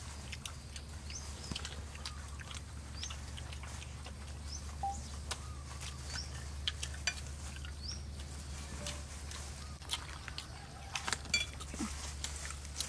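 Quiet eating sounds: small clicks of chopsticks and fingers on plates and food, with a short rising bird chirp every second or two, over a steady low hum. Near the end the clicks and crackles get louder and come thick and fast as a roast chicken is torn apart by hand.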